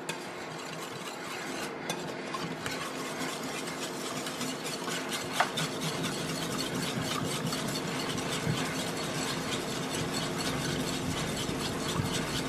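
Metal wire whisk beating thin tomato purée in a mixing bowl: rapid, steady clicking and scraping of the wires against the bowl, blending the sugar, vinegar and spices into the tomato for ketchup.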